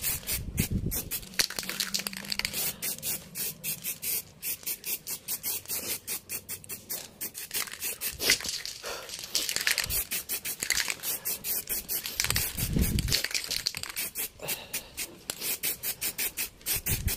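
Aerosol spray-paint can being shaken, its mixing ball rattling in a quick, steady rhythm of clicks.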